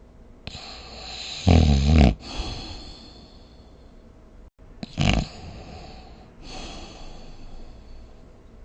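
Snoring: a hissing breath builds into a loud snore about a second and a half in that lasts about half a second, then a second, shorter loud snore about five seconds in, with softer breathing noise between and after.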